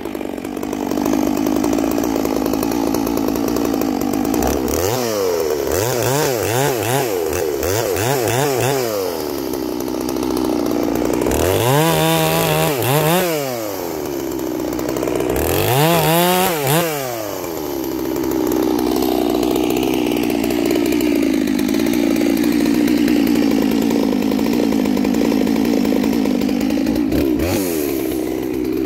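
G466 two-stroke chainsaw idling out of the cut. It is blipped up and down in a quick run of revs about five seconds in, then revved twice to high speed and let fall back to a steady idle.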